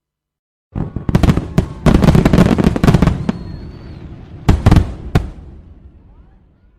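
Fireworks going off: a rapid volley of sharp bangs and crackling starts just under a second in, a second short cluster of bangs comes about four and a half seconds in, and then it fades away.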